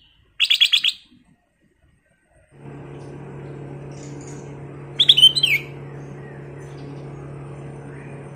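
A caged black-crested bulbul (kutilang emas) sings two short, loud phrases of rapid bright notes. The first comes about half a second in; the second comes about five seconds in and ends in a downward slur. A steady low mechanical hum starts about two and a half seconds in and continues beneath them.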